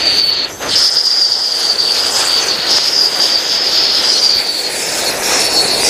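Musical whistling ground firework burning, several small fountains spraying sparks with one steady high-pitched whistle over a rushing hiss. The whistle sinks a little in pitch near the end.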